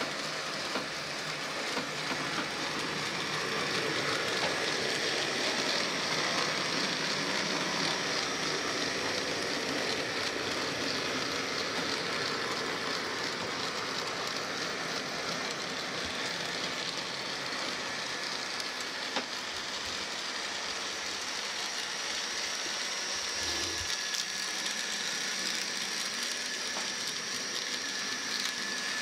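Graham Farish N gauge Class 20 model locomotive running on track with a rake of tank wagons: a steady rattle of wheels over the rails with a thin, steady high motor whine. No sound decoder is fitted, so this is the model's bare mechanism, not simulated diesel sound.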